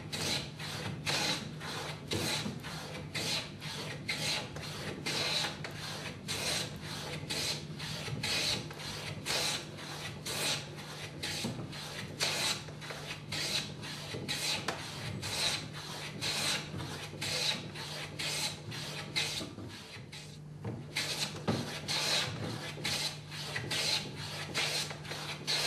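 Hand plane being pushed along a rough-sawn timber face in quick, regular strokes, about two a second, each a rasping swish as the blade lifts a shaving. The shavings thicken as the rough surface is cut away. There is a brief pause about 20 seconds in, and a steady low hum runs underneath.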